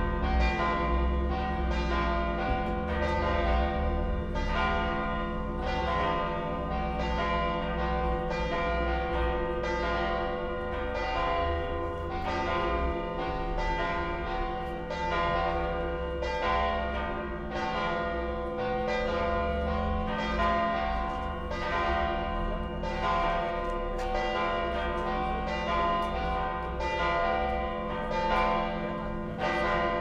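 Dome Church (St. Mary's Cathedral) bells ringing a continuous peal, several bells struck in a steady, even rhythm with their notes overlapping as they ring on. A low rumble runs underneath.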